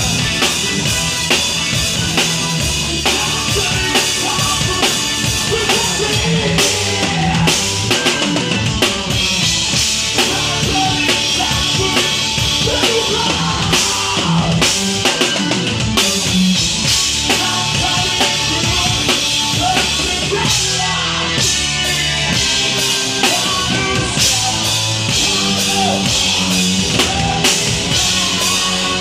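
Drum kit played in a live rock band, heard from right beside the kit: bass drum, snare and cymbals up front over the rest of the band.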